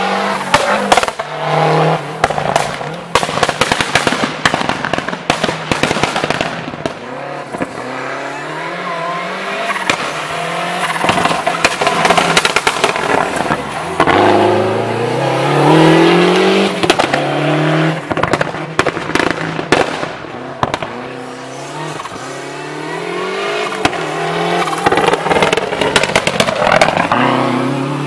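Lancia Delta HF Integrale rally car driven hard: its turbocharged four-cylinder engine revs up again and again, dropping back between rises, with sharp cracks and pops from the exhaust throughout.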